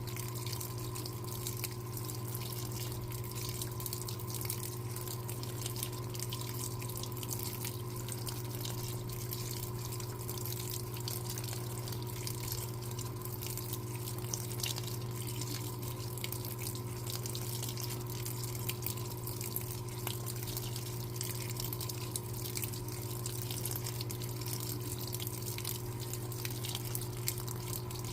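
Electrolux LTA15 washing machine filling with water: a steady stream pouring and splashing into the tub over a constant low hum.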